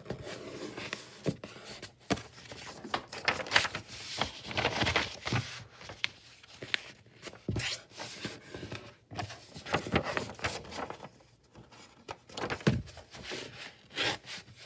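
Sheets of paper being torn in half by hand, with the sheets rustling and sliding against each other between tears: an irregular run of short and longer scratchy rips.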